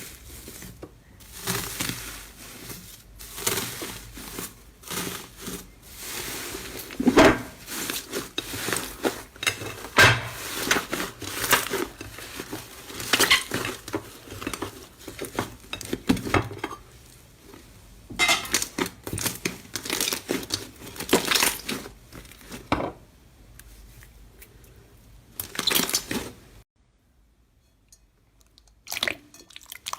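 Slime worked by hand close to the microphone: a run of irregular crackling, crunching bursts with occasional clinks. It drops almost to silence for a second or two near the end before the crackling resumes.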